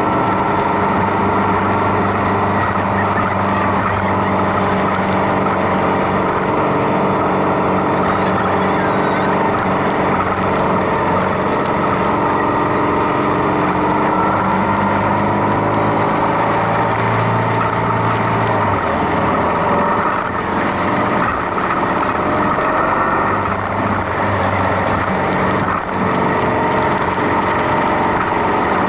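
Motorcycle engines running together, several engine notes overlapping and drifting up and down in pitch.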